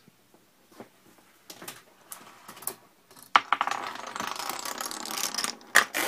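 A long row of plastic dominoes toppling in a chain: a rapid, dense clatter of clicks starting about three seconds in and lasting about two seconds, after a few scattered light clicks. Two sharp knocks come near the end.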